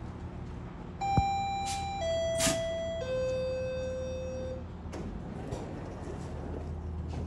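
Door-closing warning chime on a GO Transit bilevel coach: three tones stepping down in pitch about a second apart, the last held longer, warning that the doors are about to close. Under it, the idling train's steady low hum, with a click as the chime starts and a brief hiss of air.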